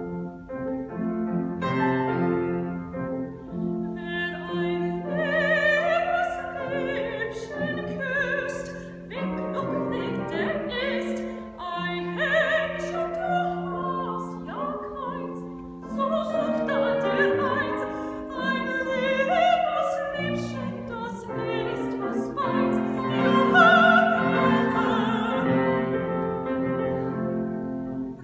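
A woman singing a German art song in full classical operatic voice, accompanied by a Steinway grand piano in a lilting Ländler dance rhythm.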